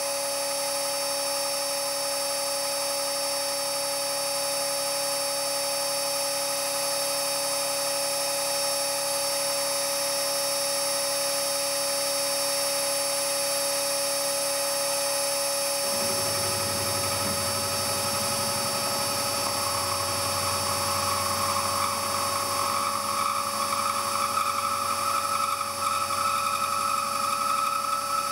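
Milling machine spindle running with an end mill cutting a slot in a metal block, second pass at 7 mm depth: a steady machine whine with several high tones. About sixteen seconds in, a lower rumble joins and the upper tone grows stronger.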